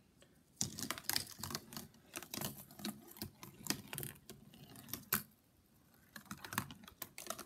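A glass marble rolling and clattering through a corrugated-cardboard marble run: a quick string of light clicks and taps as it runs along the track, with a short lull near the end before more clicks.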